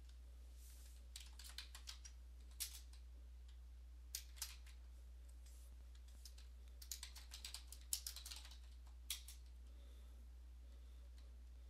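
Computer keyboard keys being typed in short runs of clicks with pauses between, the densest run about seven to eight seconds in. A faint steady low hum sits underneath.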